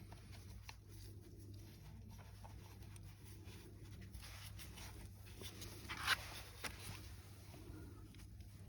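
Faint scraping and light clicks of parts being handled during a starter motor repair, with one sharper click about six seconds in, over a steady low hum.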